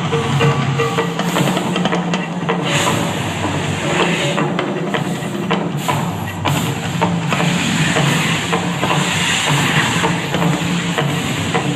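Drum-heavy show music playing over loudspeakers, with the steady hiss of an erupting volcano fountain show. Rapid percussion strikes run over a sustained low drone.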